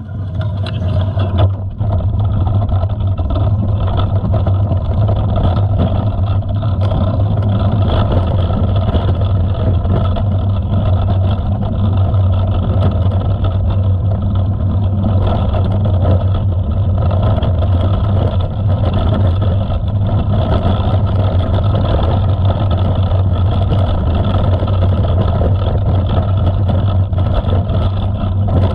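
A mountain bike rolling along a gravel dirt track: a steady rumble of tyre noise, with wind on the microphone.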